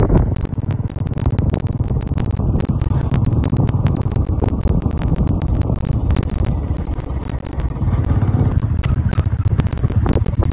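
Motorcycle engine running at a steady cruise, a low even rumble, with wind buffeting the microphone in rapid crackling gusts.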